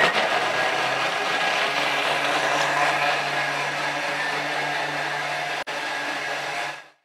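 Thermomix food processor running at high speed, its blades crushing ice cubes in the mixing bowl, a steady loud whir over a low motor hum. It dips for an instant near the end, then stops abruptly.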